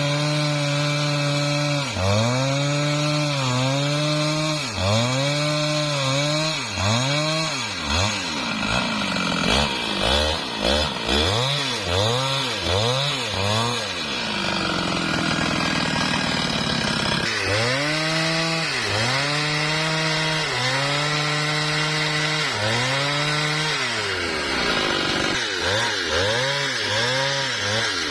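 Husqvarna 395XP two-stroke chainsaw ripping lengthwise through a mahogany log at high revs, its pitch dipping under load and recovering every second or two. In the middle come several quick dips in a row, then a short stretch where the engine note sinks low before it picks back up to full speed.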